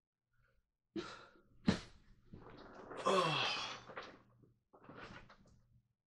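A person moving about close to the recorder: a rustle about a second in, a sharp knock just after, then a longer breathy, hissing noise with a short falling tone in it, and another brief rustle near the end.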